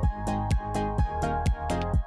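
Electronic background music with a steady beat of about four drum hits a second under sustained synth notes.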